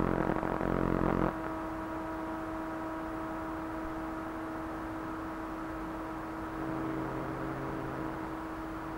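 Experimental electronic noise music from circuit-bent toys and electronics: a steady drone of several held tones. A louder, denser burst fills the first second or so, and lower tones swell in about seven seconds in.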